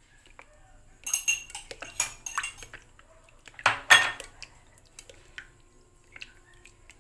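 Spatulas stirring a thick, milky mix of sago pearls and gelatin cubes in a glass bowl, clicking and clattering against the glass in irregular strokes, with the loudest knock about four seconds in.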